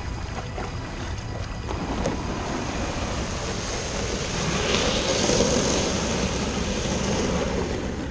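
Wind buffeting the microphone over the wash of small waves at the shoreline, the rushing sound swelling about halfway through.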